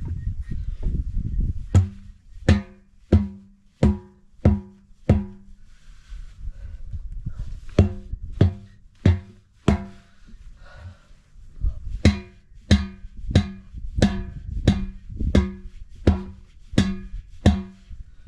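Rubber mallet blows on a big, heavy-beaded truck tyre, beating the bead back down onto the rim. The blows come in three runs of steady strikes, about one and a half a second, each a short ringing thud.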